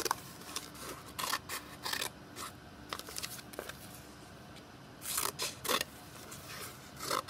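Scissors snipping through a folded sheet of paper: short separate cuts, with a quick run of snips about five seconds in.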